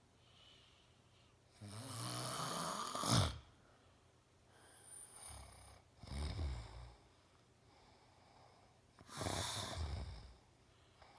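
A man snoring loudly in his sleep: three snores a few seconds apart, the first the loudest.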